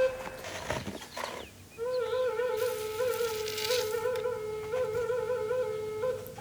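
Drone flute (IAMSOUND A4 Triple Drone Flute) holding one low note, broken by repeated warbling trills. The note comes in about two seconds in and stops just before the end.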